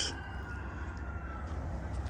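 Quiet outdoor background: a steady low rumble with a faint, thin whistle that falls slightly in pitch.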